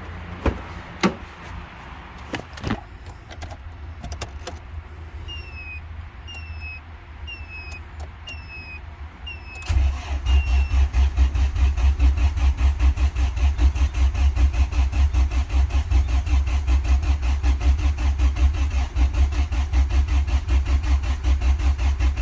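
A few clicks, then a short chirp repeating about every 0.7 s. About ten seconds in, the starter cranks the 1991 Honda Civic's engine steadily and rhythmically for over ten seconds without it catching: a no-start on the first attempt after the dual-point to multi-point injection conversion, due to a fault that was later found to be something simple that had been overlooked.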